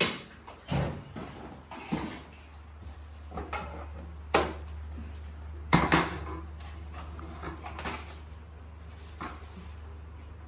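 Several sharp clatters and knocks of hard objects, like dishes or a bottle being knocked about, with the loudest pair about six seconds in. A steady low hum runs under them from about a second in.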